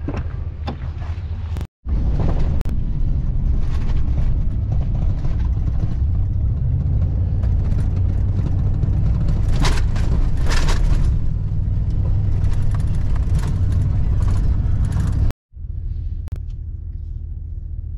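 Pickup truck on a rough dirt road, heard from inside the cab: a steady low rumble of engine and tyres with scattered knocks and rattles. The sound breaks off twice, and after the second break the rumble is quieter.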